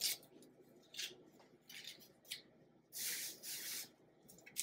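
A knife and a white onion handled on a plastic cutting board: a few short, crisp scrapes, then a longer rubbing sound about three seconds in.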